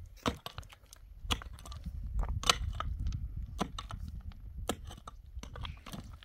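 A hand pick striking dry, stony soil about once a second, each blow a sharp crunching thud as the blade bites into earth and gravel.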